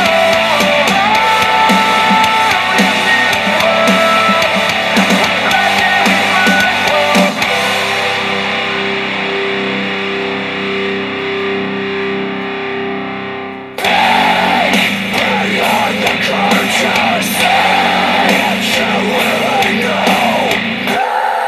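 Guitar-driven rock music played through a Star Wars Millennium Falcon Bluetooth speaker. About a third of the way in, the treble gradually fades out to a held note, then the full band cuts back in suddenly.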